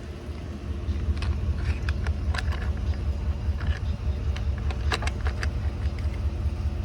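Scattered light clicks and taps of a screwdriver and small metal carburetor parts being handled, over a steady low rumble.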